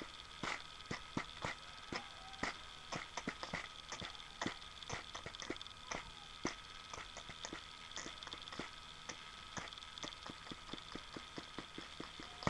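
Rapid, irregular mouth clicks and pops made with the lips and tongue, beatbox-style, several a second, over a faint steady hum.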